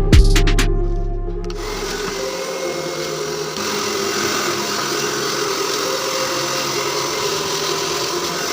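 Hair dryer running after its repair: a steady rush of fan and blown air that comes on about a second and a half in, over background music.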